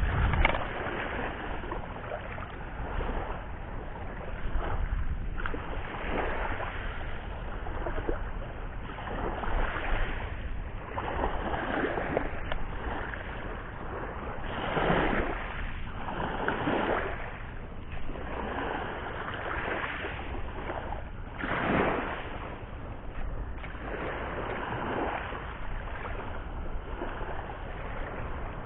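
Sea waves breaking and washing onto the shore, the surf swelling and falling back every few seconds.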